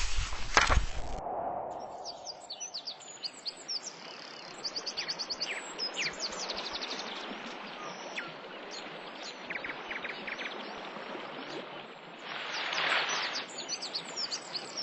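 Many birds chirping and trilling in quick, high calls over a steady outdoor background hiss. It opens with a short loud burst of noise with a couple of knocks, and a brief rush of noise comes and goes near the end.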